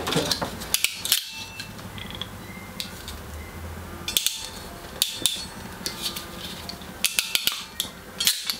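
Hand crimping tool clicking and clacking as it is picked up and squeezed shut on a yellow insulated crimp connector holding two twisted wires, with scattered handling knocks on the workbench.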